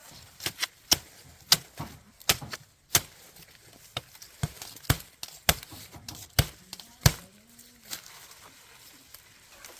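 Irregular sharp chopping strikes, about fifteen in seven seconds, then quieter.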